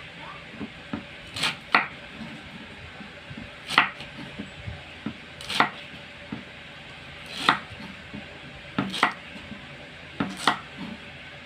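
Kitchen knife slicing peeled taro stalks into small pieces on a wooden chopping board. The blade knocks sharply on the board at irregular intervals, about one every second or two, with quieter ticks in between.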